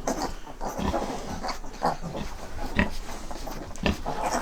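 A litter of young animals making a run of short, irregular grunts and squeaks.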